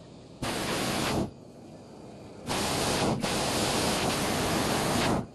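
Hot air balloon's propane burner firing in blasts: a short burst under a second long, then a longer burn of nearly three seconds with a brief dip partway through. Each burst starts and cuts off sharply.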